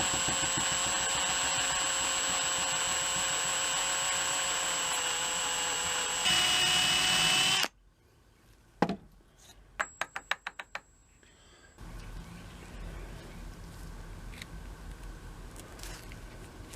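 A small high-speed power tool runs steadily, then rises in pitch and gets louder about six seconds in, and stops suddenly a second and a half later. A few light clicks and taps follow, then a soft steady noise with occasional ticks.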